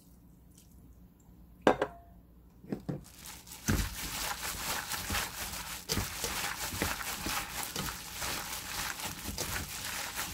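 Plastic-gloved hands kneading and tossing seasoned dried radish strips in a stainless steel bowl: wet squishing with crinkling of the plastic gloves and small knocks against the bowl. A quiet start with a couple of small clicks, then the mixing starts about three seconds in with a louder knock and keeps going.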